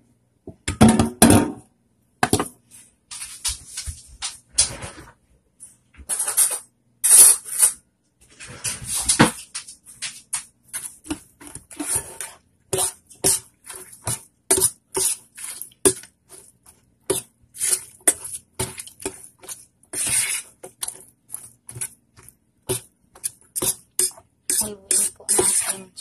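Wet dog food mixture being stirred in a stainless steel bowl: irregular short stirring and scraping strokes, settling into about two a second in the second half, with louder bursts about a second in and again near nine seconds.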